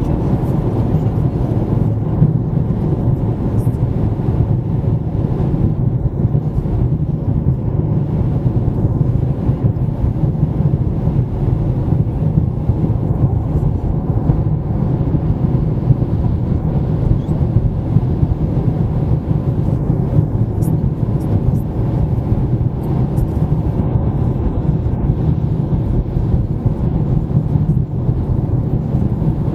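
Car driving at highway speed: a steady, low road-and-engine rumble that doesn't change.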